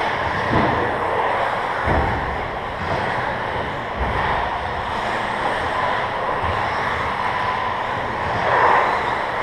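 1/10-scale electric RC stadium trucks racing on a carpet track: motor whine rising and falling with tyre and chassis noise, echoing in a large hall, with a few dull thumps.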